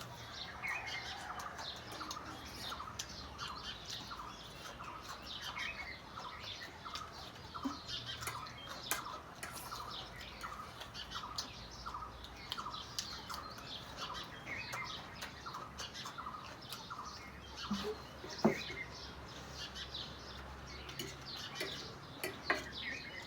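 A bird repeating one short chirp over and over, about two a second, steady for most of the stretch, with scattered small clicks alongside.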